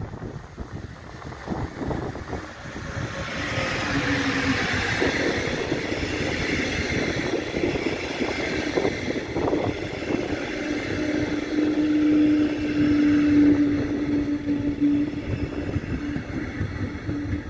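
A red electric-hauled double-deck regional train passing through a station without stopping. The rumble and hiss of wheels on rail build up as it nears, a steady humming tone sounds while the coaches go by, and the noise eases as the train leaves.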